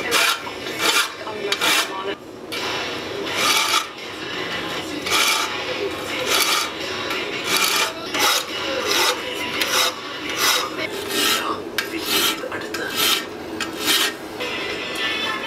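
Hand file drawn across a metal knife guard clamped in a vise, one rasping stroke about every three-quarters of a second, with a short pause about four seconds in. The filing stops just before the end.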